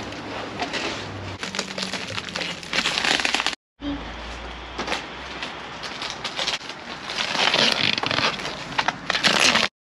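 Plastic wrapping and bubble wrap crinkling and rustling in irregular bursts as they are pulled off a new bike frame. The sound drops out briefly about three and a half seconds in, then the rustling resumes.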